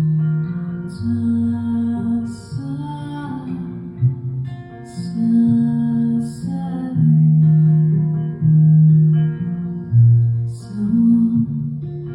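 Slow devotional mantra music: an acoustic guitar with a voice singing long held notes that step slowly from pitch to pitch.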